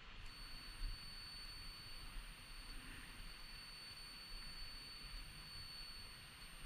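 A steady, high-pitched electronic tone switches on abruptly and holds, over a faint even hiss of light-aircraft cabin noise.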